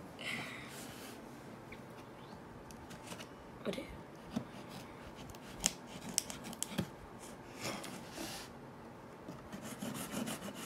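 A metal blade slitting the tape seal of a cardboard box: faint scraping and rubbing broken by scattered sharp clicks and ticks.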